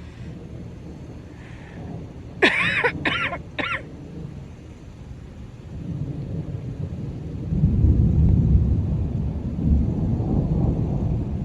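Three quick coughs a couple of seconds in, then a low rumble of thunder that builds from about six seconds and is loudest near the end.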